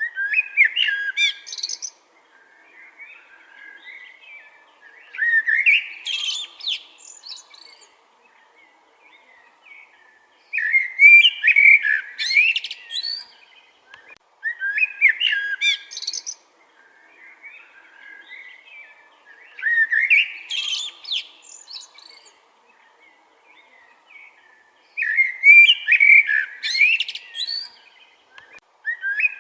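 Common blackbird singing: a string of warbled song phrases, each a couple of seconds long and coming about every four to five seconds, with quieter twittering in between.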